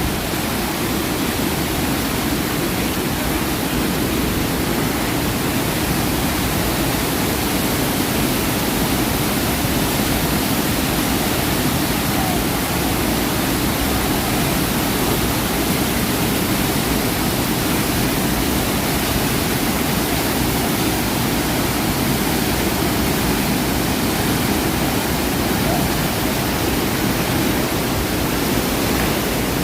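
Steady, loud rush of falling and churning water from the man-made waterfalls and rapids of a whitewater raft ride, even and unbroken throughout.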